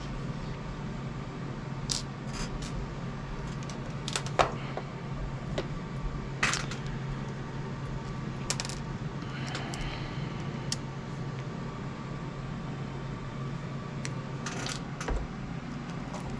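Scattered small clicks and taps of hands working small servo hardware while fitting a cyclic servo into its tray, over a steady low hum.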